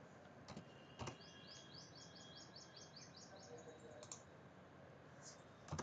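A few sharp computer-keyboard key clicks over faint room hiss, as values are typed into a command line. Between the clicks, from about a second in for about two seconds, a faint run of quick, high chirps like a small bird's.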